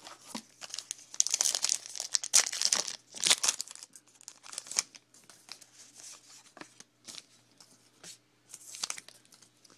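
Wrapper of a Topps Allen & Ginter's trading-card pack crinkling and tearing open, loudest in the first few seconds, then lighter rustles and snaps as the cards are handled.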